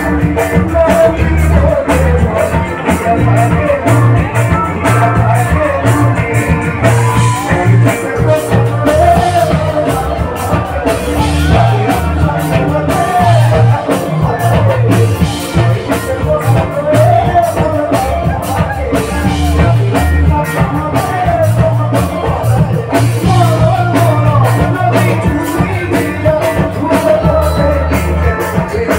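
Live band playing an Assamese song through a loud PA, with singing over bass guitar, drums and keyboard.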